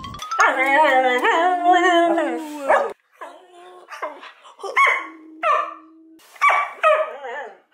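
Border collie vocalizing: one long wavering call of about two and a half seconds, then a string of short barks and yips.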